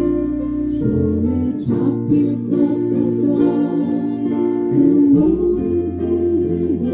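Instrumental music led by guitar over held low bass notes that change every second or two; no words are sung.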